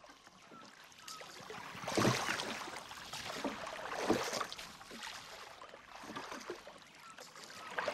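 A rowed boat moving on water: water splashing and sloshing in surges with the oar strokes, about every two seconds.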